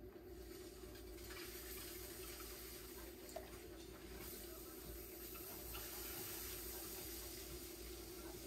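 Water running steadily over a low steady hum; the water noise grows louder about a second in.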